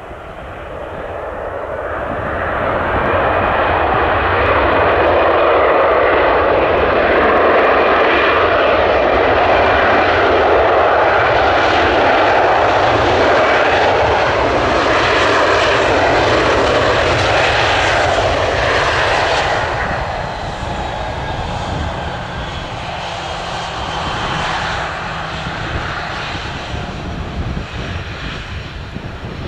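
Airbus A320 jet airliner landing, its engine noise building over the first few seconds, staying loud, then easing off about twenty seconds in.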